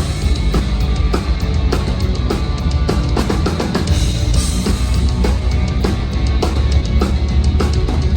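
Heavy metal band playing live, the drum kit prominent, with frequent bass drum and snare strikes over a dense, loud low end of guitars and bass.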